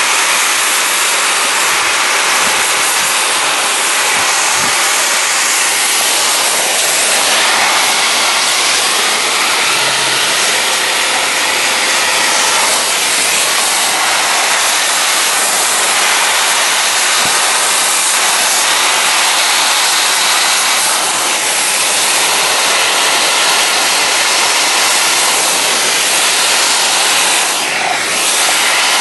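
Handheld hot-air plastic welding gun running with its heater turned up to full, its blower giving a steady, loud rushing hiss as it heats the edge of a plastic patch to tack-weld it onto a geomembrane liner.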